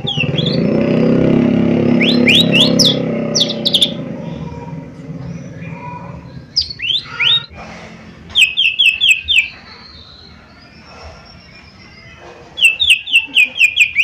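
Cucak ijo mini (a small leafbird) calling in quick runs of sharp rising chirps, one fast series near the middle and another near the end. A loud low noise fills the first few seconds and fades out.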